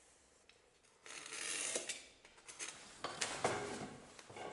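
Snap-off utility knife blade drawn along a steel ruler, slicing through a sheet of leather in two scratchy strokes: one about a second in and one about three seconds in, with a few sharp clicks.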